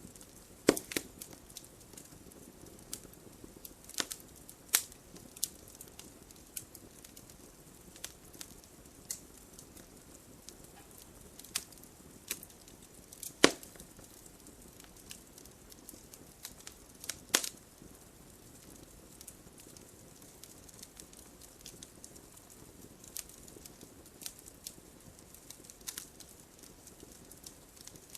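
Wood fire crackling: sharp, irregular pops and snaps over a soft low hiss, with the loudest pop about halfway through.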